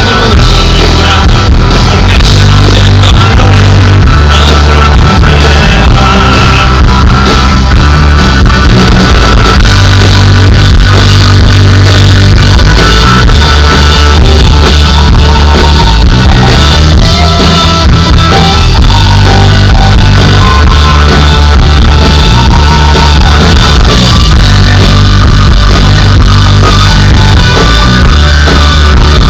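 A rock band playing loud, with guitar, bass and drums and some singing.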